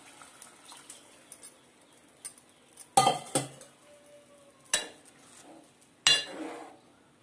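A steel spoon and vessels clanking against a metal cooking pot as water is stirred into a curry: a few light clicks, then four sharp clanks, two close together about three seconds in, one near five seconds and one about six seconds in.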